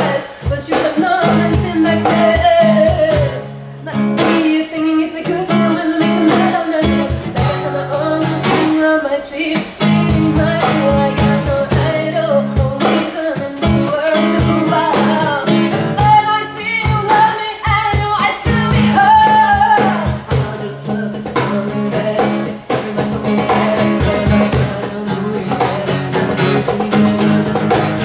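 Woman singing over a strummed acoustic guitar and steady cajon beats: a live acoustic band performance.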